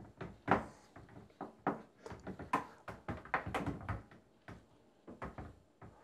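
Wire shoe-drying rack of a tumble dryer being hooked into the drum: a string of irregular metallic clicks and knocks as it is fitted.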